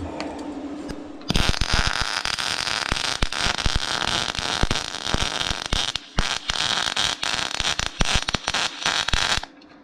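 MIG welder set to about 52 amps running a weld on sheet steel, a steady dense arc crackle. It starts about a second in, breaks off briefly twice past the middle, and stops just before the end.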